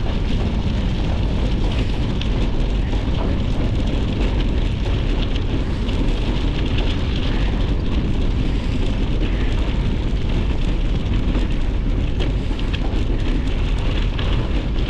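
Steady wind noise buffeting a GoPro's microphone while a gravel bike rolls along, its tyres crackling over a gravel and dirt road.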